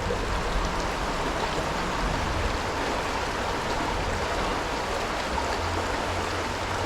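Stream water flowing steadily, an even rushing wash.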